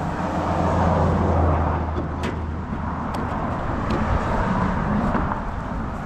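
A motor vehicle's engine running close by: a steady low hum under a rushing noise that swells over the first second, with two light clicks in the middle.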